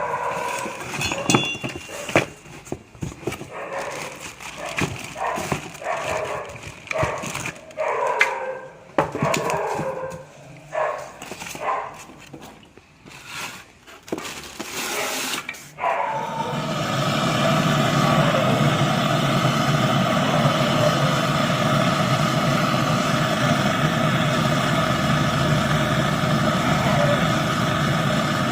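A dog barking repeatedly, mixed with irregular knocks, for the first half. A little past halfway a steady machine noise with a low hum starts and keeps running.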